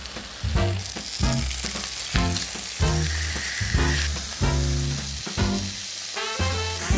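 Lamb shoulder sizzling as it sears in a hot frying pan with a little oil; the sizzle builds from about a second in. Background music with a steady beat plays underneath.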